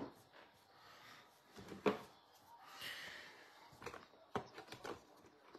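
Faint handling noises as trading cards are handled: a sharp tap about two seconds in, a short rustle a second later, then a few lighter clicks.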